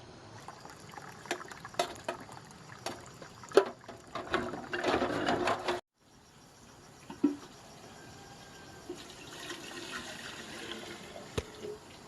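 Water splashing and pouring, mixed with scattered knocks and clicks; it breaks off abruptly about six seconds in, and a softer steady running-water sound follows, with a sharp knock near the end.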